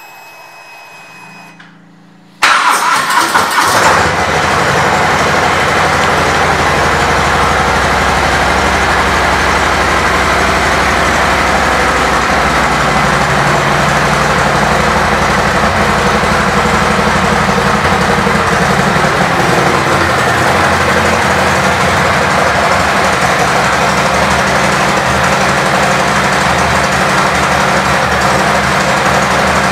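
A 2020 Harley-Davidson Heritage Classic 114's Milwaukee-Eight 114 V-twin, fitted with Cobra exhaust pipes, is started after a brief faint hum. It catches about two and a half seconds in and then idles steadily.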